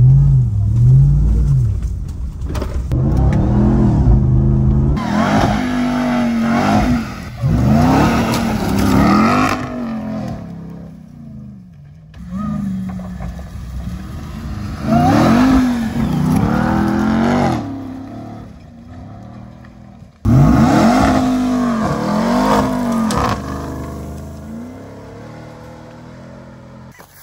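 Ram TRX's supercharged 6.2-litre V8 revving hard under load while towing a caravan, in repeated surges whose pitch climbs and drops back with each shift or lift off the throttle. The engine sound dies away near the end.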